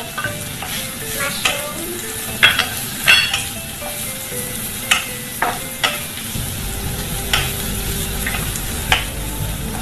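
Chopped Chinese sausage and mushrooms sizzling in hot oil in a frying pan, stirred with a wooden spatula that scrapes and taps against the pan at irregular moments about once a second.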